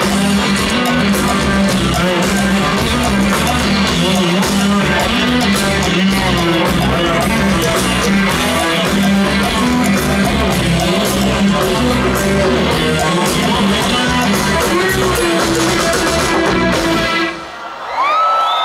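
Live rock band playing, with electric guitar over a steady bass line. The music cuts off suddenly near the end, and a high tone glides upward just after.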